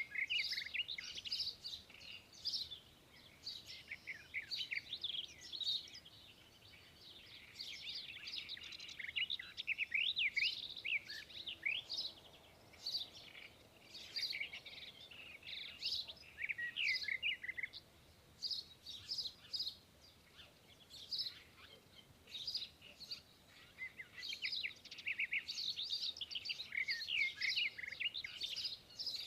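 Small birds chirping and calling, many short high chirps overlapping one another, with a thinner stretch about two-thirds of the way through before they pick up again.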